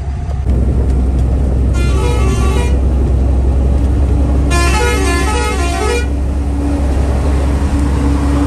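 Steady low engine and road drone inside a truck cab at highway speed. Over it a multi-note vehicle horn sounds twice, about two and five seconds in, its tones stepping up and down; the second blast is longer.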